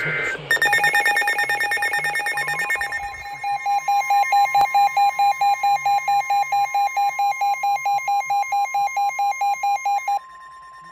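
NOAA weather radio receivers going off for a warning. It opens with the end of the warbling digital SAME header. Rapid, shrill electronic beeping from the radios' alert alarms follows, and the steady NOAA warning alarm tone joins about two seconds in. The beeping stops shortly before the end, leaving the steady tone.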